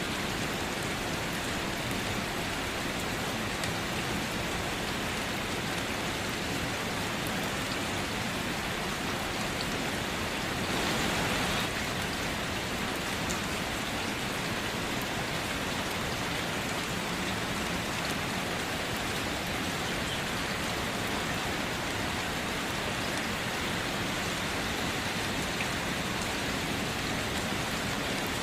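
Steady rain falling and pattering on surfaces, with a brief heavier surge about eleven seconds in.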